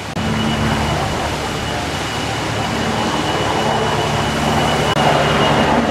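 Helicopter in flight: a steady drone of engine and rotor with a thin, high turbine whine over it, growing slightly louder near the end.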